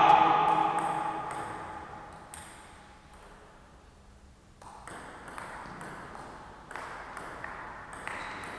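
A ringing tone with several pitches fading out over the first few seconds. After a short lull come faint, irregular clicks of table tennis balls being struck and bouncing, with hall noise.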